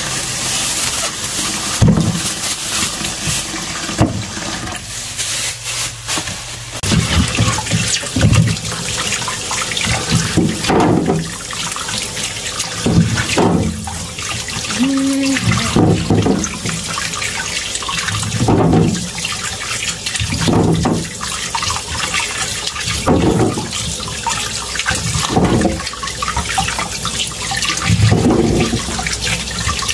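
Kitchen tap running into a sink as bell peppers are washed under the stream, with water splashing in swells every couple of seconds.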